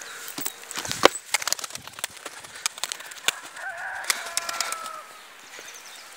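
Van pigeons' wings clapping and flapping as they take off, a string of sharp claps, with a rooster crowing once from about three and a half seconds in.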